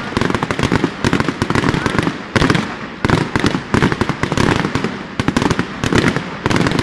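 Aerial fireworks display: shells bursting in rapid, overlapping bangs and crackles, several a second, without a pause.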